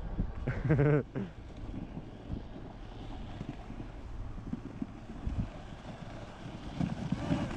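Wind buffeting the microphone in a steady low rumble, with a person's brief loud shout about half a second in.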